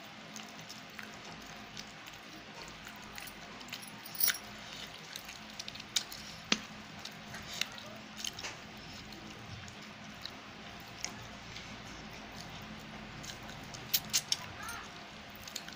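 Fingers mixing rice and chicken on a steel plate: scattered small clicks and taps against the metal, with a cluster of quick clicks near the end, over a faint steady hum.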